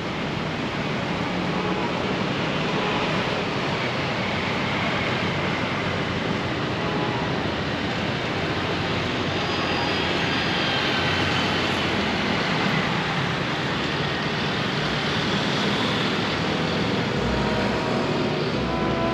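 Steady road traffic noise, a continuous hum of passing vehicles.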